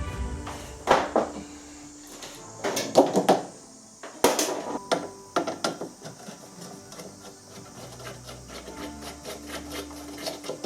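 Knocks, clatter and scraping of tools and plastic parts as a washing machine is taken apart. There is a cluster of louder knocks around three seconds in and the loudest about four seconds in, then a run of lighter clicks, over quiet background music.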